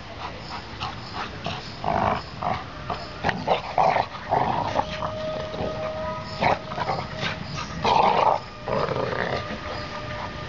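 Two yellow Labrador retrievers play-fighting, growling in irregular short bursts as they wrestle and mouth each other. The loudest bursts come about two seconds in and around eight seconds in.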